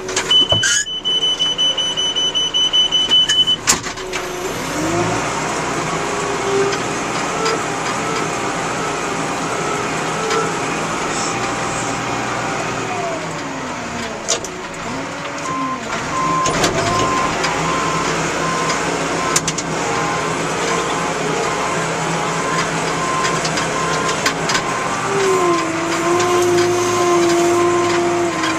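310E backhoe loader's diesel engine revving up and working, easing off about halfway through and then revving again, with its pitch stepping down near the end. An evenly repeating electronic beep, typical of a reversing alarm, sounds through the second half.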